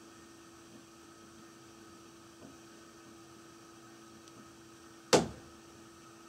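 A single sharp bang of water hammer in the water supply pipes inside the wall after a toilet flush, about five seconds in, dying away quickly, over a steady faint hum.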